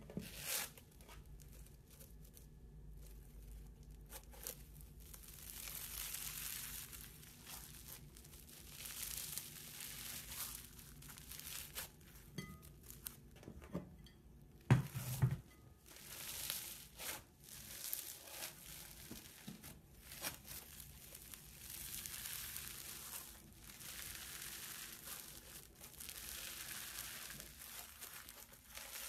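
Foam-bead (floam) slime crackling and crunching as hands squeeze, stretch and pull it apart, in repeated bouts of crackle, with a soft thump about halfway through.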